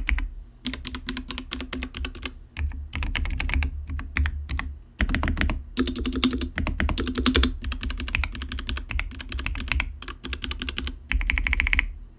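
Dark Project KD87A mechanical keyboard being typed on quickly: a dense run of key clacks with a few short pauses.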